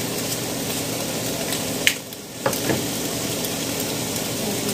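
Thin-sliced steak sizzling in a frying pan, over the steady hum of a range-hood fan. A little under two seconds in there is a sharp click, the sound dips for about half a second, and a second click follows.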